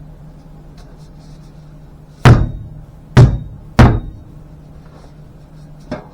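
Three heavy metal knocks, a little under a second apart, as a muffler insert is knocked back into a steel side pipe, each with a short ring; a lighter knock follows near the end.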